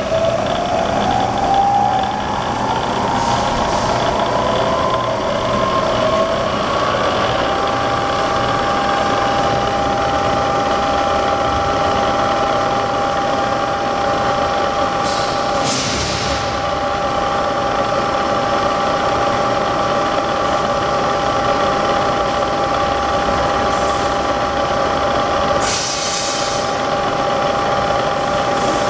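Bridgeport EZ Trak DX milling machine's spindle running with a whine that rises in pitch over the first several seconds as the spindle speed is raised, then holds steady. Two brief hisses come partway through and near the end.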